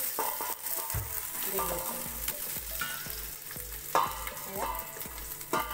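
Washed basmati rice sizzling as it fries in hot oil in a steel pot, while more rice is tipped in from a colander and stirred with a spatula. A few short squeaky scrapes stand out over the steady hiss.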